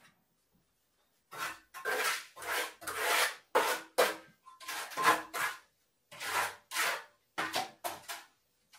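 Quick rough scraping strokes, about two a second, of a hand tool working through gritty wet concrete mix at a drum concrete mixer. They start a little over a second in and stop shortly before the end, with near silence between strokes.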